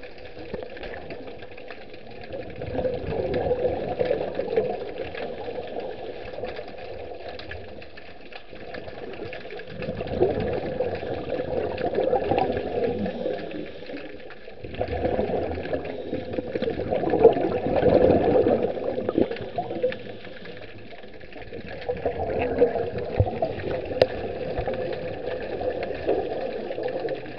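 Exhaled bubbles bursting from a scuba regulator underwater: four long bubbling surges several seconds apart, one per breath out, over a steady hiss.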